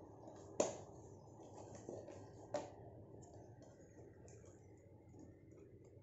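Two sharp clicks about two seconds apart, the first about half a second in, with a few softer ticks, over a faint steady low background noise.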